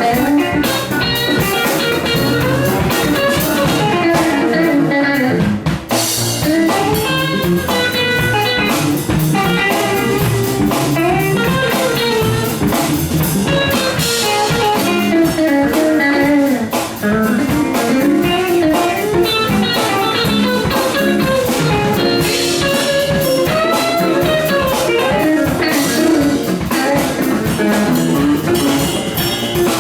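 A band playing a live instrumental jam, a guitar carrying a bending melodic line over a drum kit.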